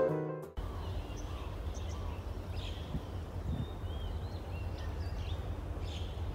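Guitar music ends within the first half-second, then outdoor ambience: a steady low rumble of wind on the microphone with a few short bird chirps scattered through the middle.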